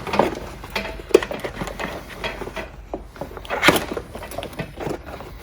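Plastic ATV body panels and parts being handled and worked into place: scattered knocks, taps and rustling, with one louder knock a little before four seconds in.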